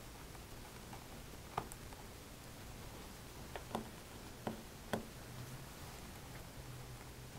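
Phillips 00 precision screwdriver backing out the small screws that hold the MacBook Air's hard drive: a handful of faint, sharp clicks and ticks of the metal bit on the screw heads.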